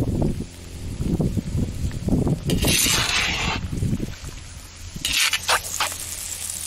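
Food sizzling and hissing in a hot kazan where vegetables have just been piled onto frog legs and seafood cooking in sauce, with a louder burst of hiss about two and a half seconds in and short hisses near five seconds. Wind rumbles on the microphone in the first couple of seconds.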